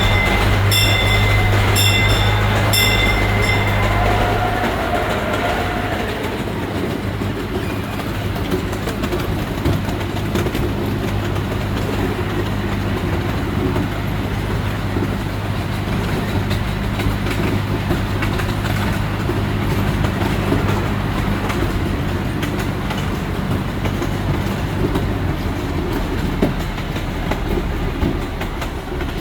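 Miniature park train running along its track, heard from the front car: a steady rolling rumble of wheels on rail, with an engine hum that fades after about six seconds. A few repeated high rings sound in the first four seconds.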